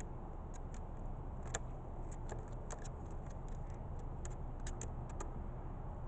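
Steady low outdoor background rumble with about fifteen light, irregular ticks scattered through it, the sharpest about a second and a half in.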